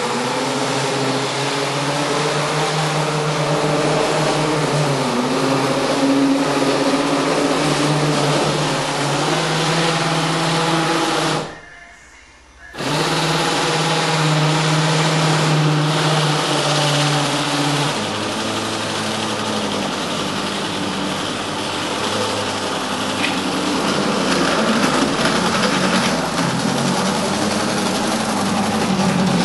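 Electric motor and gearing of a G-scale model tram running, a steady whine. It cuts out for about a second near the middle, then resumes and drops in pitch a few seconds later.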